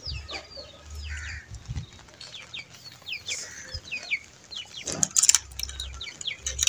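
Chickens clucking and calling, with many short, high, falling chirps throughout. About five seconds in comes a brief metallic rattle as the padlocked latch on the coop's wire-mesh door is handled.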